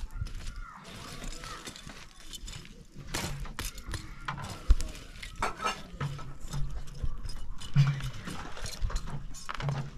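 Irregular clatter of dishes and cooking utensils: sharp clinks and knocks at uneven intervals, with one loud knock about halfway through.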